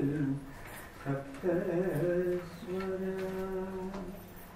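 A man's voice singing a Carnatic phrase in raga Jaganmohini, with quick wavering ornaments on the notes. It settles into one long held note that stops about four seconds in.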